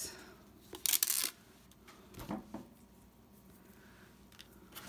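A short crisp rustle about a second in as a rolled diamond-painting canvas in its plastic-and-paper wrap is handled, then a soft thud and faint handling noises.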